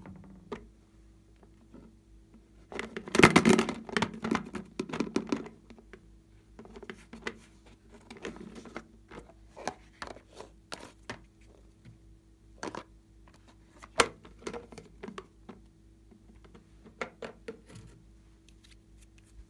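Hands handling hard plastic: a toy case being opened, and a tube and a small glass bottle being picked up. It comes as a series of clicks, knocks and rattles, loudest about three to five seconds in, over a faint steady hum.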